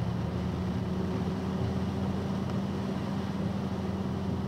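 Box truck's engine and road noise heard inside the cab while driving on a wet road: a steady drone with an even hiss over it.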